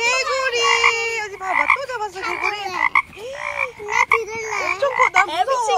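Frog croaking, a string of short pitched calls repeated over and over.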